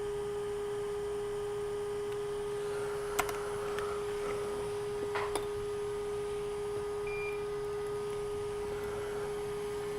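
A steady, even electrical hum tone over a faint hiss from the bench equipment, with a few faint light clicks about three and five seconds in.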